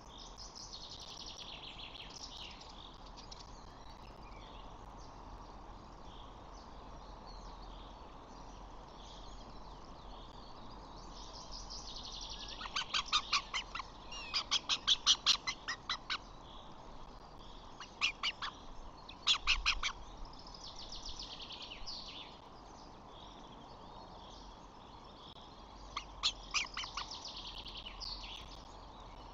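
Birds calling outdoors: faint high twittering throughout, broken about midway by loud quick runs of sharp repeated calls, with two short bouts soon after and one more near the end.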